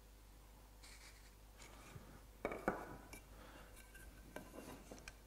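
Faint scratching of a mortise gauge's pins scribing lines along a wooden stile, then a couple of sharp knocks about halfway through and a few light clicks as the gauge and workpiece are handled.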